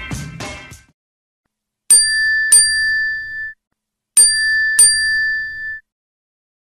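Bell sound effect: two quick dings on the same high pitch, each ringing out briefly, then the same pair again about two seconds later. The tail of background music fades out just before.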